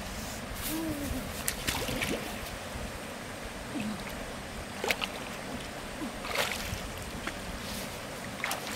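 River water flowing steadily, broken by several sharp splashes as a hooked fish thrashes in the shallows and is grabbed and lifted out by hand.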